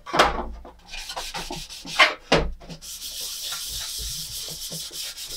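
A 1000-grit sanding pad rubbed back and forth over a white plastic toy kitchen piece: a dry rasping scrape in repeated strokes, a few louder ones near the start and about two seconds in, smoothing the plastic before painting.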